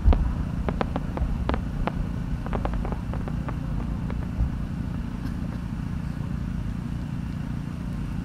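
A scatter of sharp pops from a burst firework shell, the loudest right at the start, thinning out over about three and a half seconds as its chrysanthemum stars burn out, over a steady low rumble.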